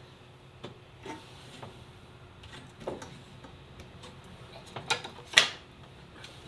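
Scattered light clicks and taps of small screws, brackets and tools being handled on a workbench, with two sharper clicks about five seconds in.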